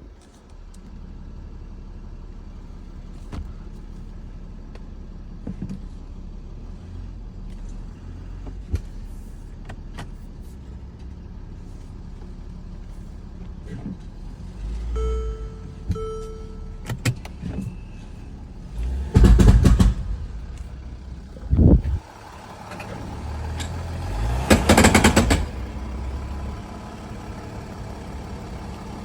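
Mercedes ML350 BlueTec's diesel engine running with scattered sharp cracks. In the second half come three loud noisy surges, the last about a second long, as the vehicle is pulled away. This is the cracking noise on acceleration, forward or in reverse, that the owner is chasing. Two short beeps sound a little past the middle.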